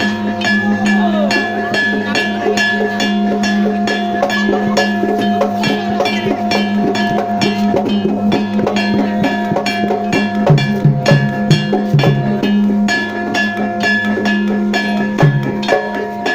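Jaran kepang gamelan music: struck percussion keeps a steady fast beat of about three to four strokes a second over long held tones, with deeper low notes joining about ten seconds in.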